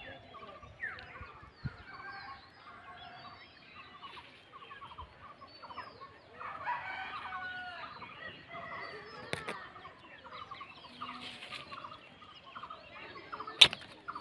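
Domestic fowl clucking, with other birds calling in many short repeated notes; a sharp click near the end.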